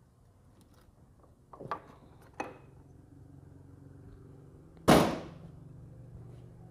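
Metal tools and engine parts clanking while the cylinder is taken off a Bajaj CT 100 engine: two light clanks, then one loud sharp metallic strike near the end, with a faint steady low hum underneath.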